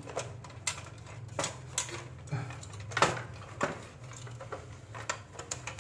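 Irregular sharp clicks and light knocks of small hard plastic and metal parts being handled, the loudest about 3 seconds in, over a low steady hum.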